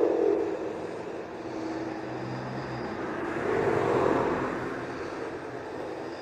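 A sleeping person snoring: a noisy snore right at the start and another about four seconds in, with slow, rasping breathing between them.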